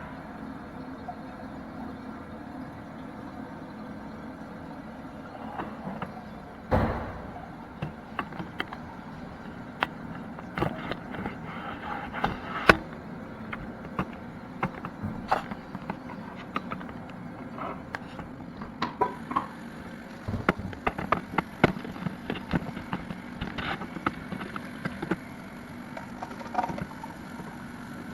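Irregular clicks, taps and knocks of hard parts being handled, with a loud knock about seven seconds in and the taps coming thicker in the second half, over a steady low hum.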